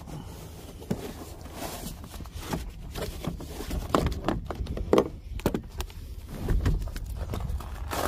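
Footsteps on gravel, irregular scuffs and knocks, with a few louder ones about halfway through, over a steady low rumble.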